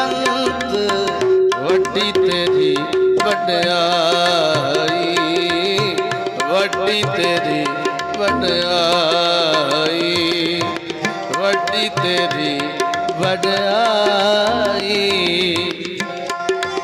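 Instrumental interlude in Sikh shabad kirtan: tabla drumming under steady held harmonium notes and a wavering melodic lead line.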